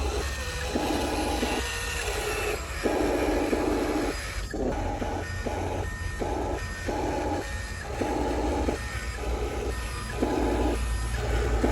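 Electric motors of a radio-controlled Huina construction model whirring in short stop-start bursts, each about half a second to a second long, as its controls are worked, over a steady low hum.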